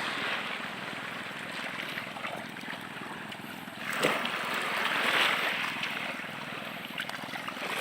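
Water washing against the shore, a steady rushing wash that swells louder about four seconds in and then eases off.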